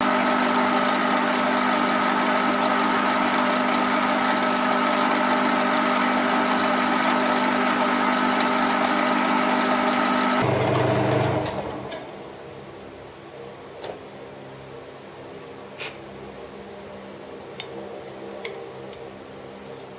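Metal lathe running with a steady motor and gear hum, switched off about eleven seconds in and spinning down. Afterwards a few light metallic clicks as parts are handled.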